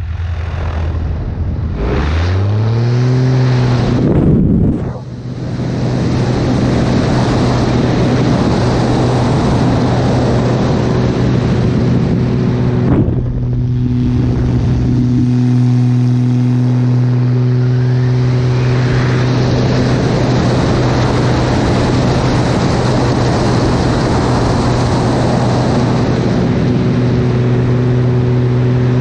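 Single-engine aerobatic plane's propeller and engine running under heavy wind rush. The engine note climbs sharply about two seconds in, dips briefly a couple of seconds later, then holds steady.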